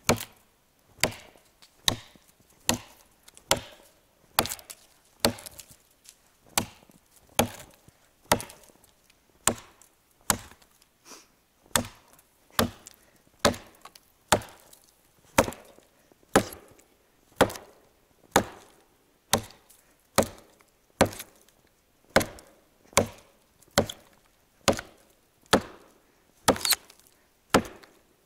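Hand-forged 'Burunduk' axe on a 60 cm handle chopping steadily into a felled log to buck it: a sharp wooden chop a little more than once a second.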